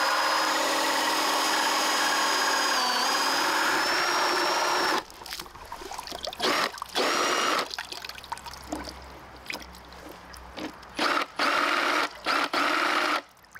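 Cordless drill spinning a 3D-printed gear pump, a steady motor whine with a brief dip in speed about three seconds in, cutting off about five seconds in. After that there is light trickling of water and a few short bursts of the drill. The pump is delivering only a weak stream, which the maker puts down to air leaking in through cracks around the inlet.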